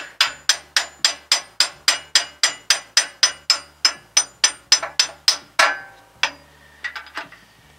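A small hammer striking a steel bolt used as a drift, about three blows a second with a metallic ring, driving the pivot pin out of a front-end loader's hydraulic cylinder mount. The steady blows stop a little past halfway, followed by one last strike and a few light taps.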